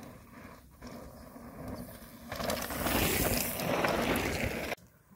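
Bicycle tyres rolling over loose dirt and gravel as a rider passes right by, loud for about two seconds and cutting off suddenly near the end.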